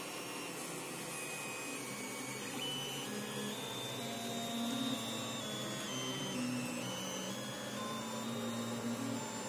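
Creality CR-10 3D printer running: its stepper motors sing in short steady notes that jump from pitch to pitch as the head and bed move, over a constant hiss.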